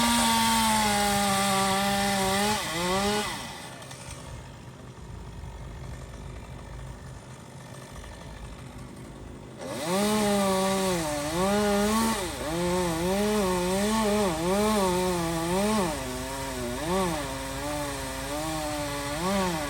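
Chainsaw engine running at high speed for about three seconds, dropping to a quieter idle for about six seconds, then revved up and down in a string of short surges, about one a second.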